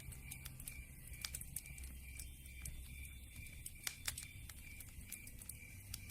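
Campfire crackling, with irregular sharp pops and snaps over a low, steady rumble.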